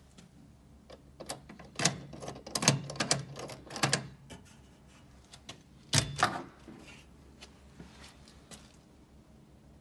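Steel entrance door's lock and latch hardware clicking as the door is released and opened: a quick run of sharp clicks and clacks between about one and four seconds in, one loud clack about six seconds in, then a few faint ticks.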